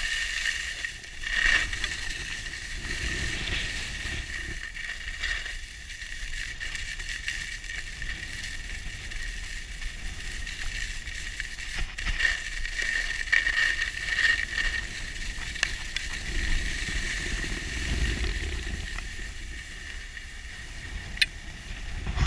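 Skis sliding and scraping over groomed, hard-packed snow on a downhill run, a steady hiss with low wind rumble on the microphone that swells about two-thirds of the way through. A few sharp clicks come near the end.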